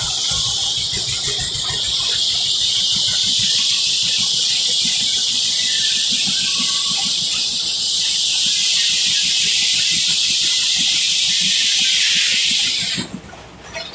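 A sawmill blade cutting through a tulip poplar log: a steady high hiss over the low, even beat of a 1935 John Deere Type W-111 two-cylinder power unit. The cutting noise stops suddenly about 13 seconds in, and the sound drops to a much quieter level.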